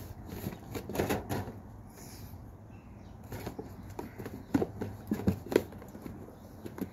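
Cans being pulled from a cardboard 12-pack box: irregular knocks, taps and scrapes of aluminium cans against cardboard and each other.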